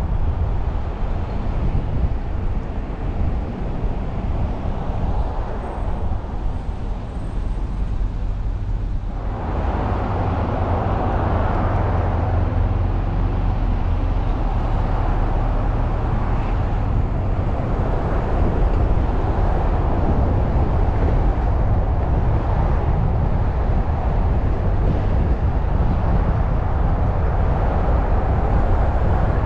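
Car driving along a city street: a steady low rumble of engine and tyre noise with surrounding traffic, growing louder and fuller about nine seconds in.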